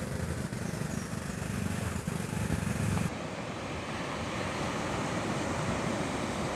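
A steady outdoor rumble. About three seconds in it changes abruptly to the even wash of surf breaking on a sandy beach.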